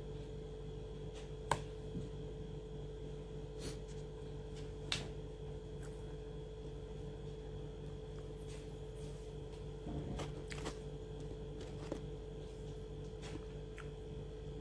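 Scattered faint clicks of a person eating by hand, handling a small piece of food and chewing, over a steady electrical hum.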